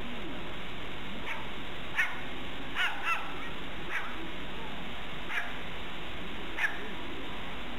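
A series of short, sharp animal calls, about seven, spaced irregularly over several seconds, over a steady hiss.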